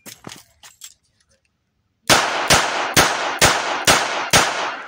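Six shots from a Colt Detective Special .38 Special snub-nose revolver, fired at an even pace about half a second apart, starting about two seconds in, the last echoing away. A few faint clicks come before the first shot.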